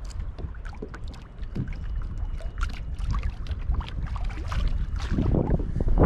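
Small waves lapping and slapping against a kayak hull in choppy water, with irregular little splashes over a steady low wind rumble. The water swells louder about five seconds in.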